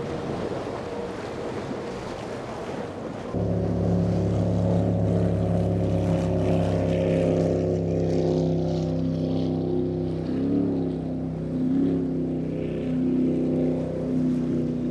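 Rushing wind and water spray for about three seconds, then, after a sudden cut, a Baja performance boat's engines running at speed. The engine note is steady and wavers briefly in pitch about ten seconds in.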